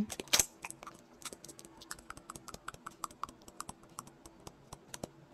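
A dog chewing and crunching on a small piece of food: a quick, irregular run of faint clicks, with one louder knock about half a second in.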